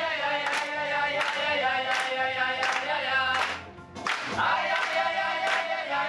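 A group of voices singing together over a recorded backing track with a steady beat, with hand clapping on the beat. The sound drops out briefly just before four seconds in.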